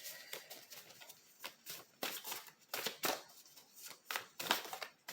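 Tarot cards being handled: a string of short, irregular papery slides and slaps as cards are flipped and laid down, a few of them louder than the rest.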